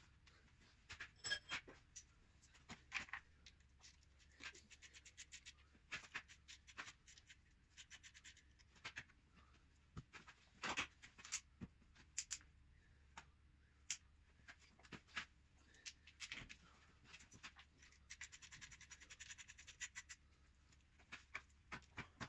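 Scattered clicks and light metallic taps of hand tools working on the gearbox bolts, with a couple of seconds of rapid clicking about eighteen seconds in.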